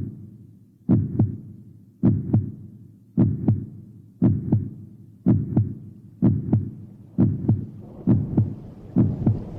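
Heartbeat, a double lub-dub thump about once a second, the beats coming slightly faster toward the end. A faint hiss of rain fades in over the last couple of seconds.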